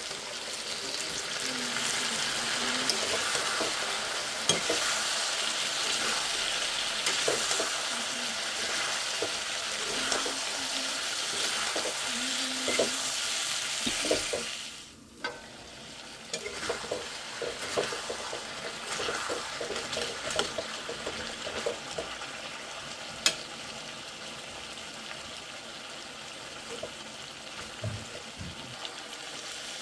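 Chicken pieces frying and sizzling in a steel kadai while a metal ladle stirs and scrapes them, with short clicks of the ladle against the pan. About halfway through the sizzle drops suddenly and carries on quieter.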